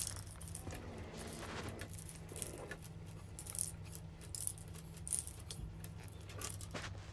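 Aerosol spray paint can hissing in short bursts as dark blue is sprayed through a stencil, with light metallic clinks from the stencil plates being handled and a low steady hum underneath.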